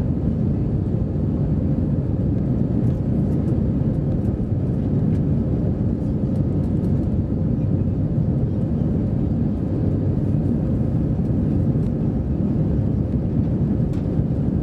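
Airbus A320-214 cabin noise in the climb after takeoff, heard from a window seat over the wing: the CFM56-5B turbofan engines and rushing air make a steady low rumble, with a faint steady hum above it.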